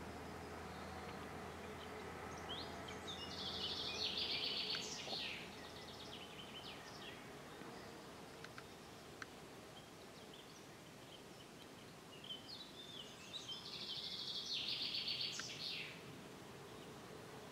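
A songbird singing two short, fast trilled song phrases about ten seconds apart, over faint steady background noise.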